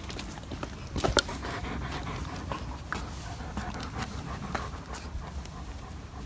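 Bernese mountain dog panting, with a couple of sharp clicks about a second in.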